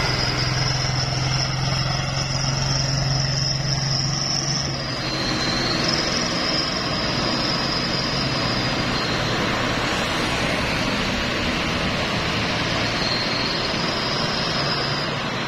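Heavy diesel trucks running on the road, one passing close with a steady low engine drone for the first five seconds, then a steady rumble of engines and traffic. A thin high tone comes and goes three times over it.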